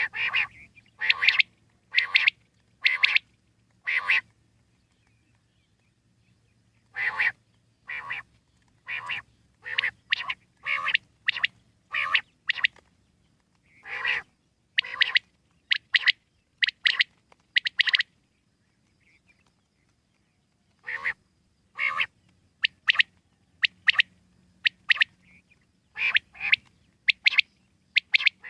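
Common quail calling: short, harsh calls repeated in runs of about one to two a second, broken by pauses of a couple of seconds.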